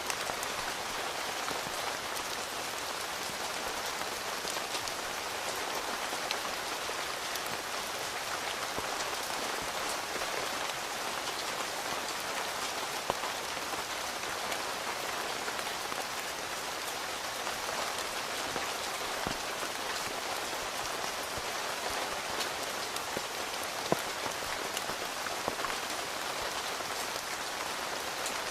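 Steady rain falling on a tent, heard from inside, with a dense patter of individual drops and a few sharper single drop hits standing out now and then.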